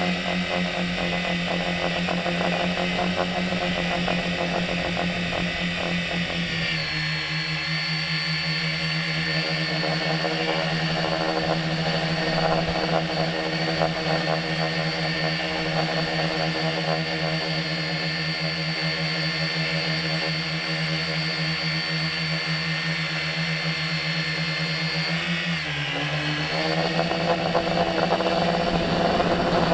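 Tricopter's electric motors and propellers whirring steadily in flight. The pitch drops about seven seconds in, then dips and climbs again near the end.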